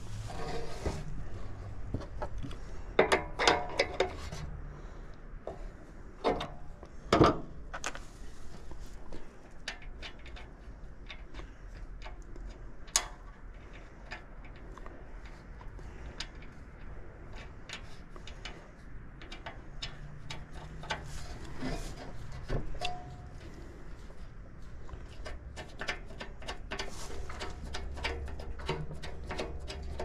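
Irregular clicks, taps and knocks of tools and parts being handled during hand work on the unit, with the loudest knocks about three to four seconds in and again about seven seconds in.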